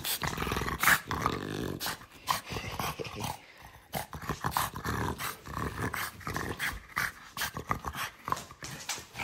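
A French bulldog making low, grumbling growls in bouts while being stroked, with scattered clicks of handling between them.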